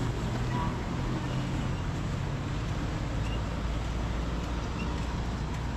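Steady road traffic noise, with a low engine rumble that swells in the middle.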